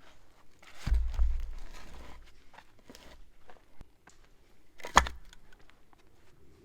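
Rustling and crinkling handling noises with scattered small clicks, a dull knock about a second in and a sharper knock near the five-second mark.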